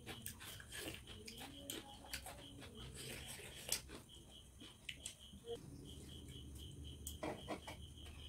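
Quiet eating sounds: roti torn by hand, fingers picking food from the plates and chewing, with many small clicks and rustles. A faint high chirp repeats evenly about five times a second behind it.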